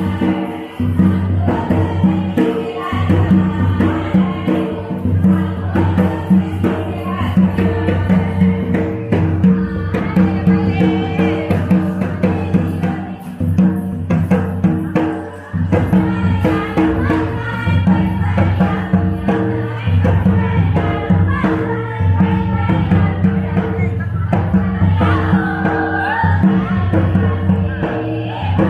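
Folk song in the Karam geet style: group voices singing over sustained accompaniment, with drum and jingling percussion beats. The music dips briefly about halfway through, then carries on.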